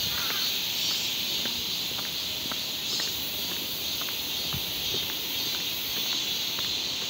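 Steady, high-pitched drone of an insect chorus, with faint scattered ticks.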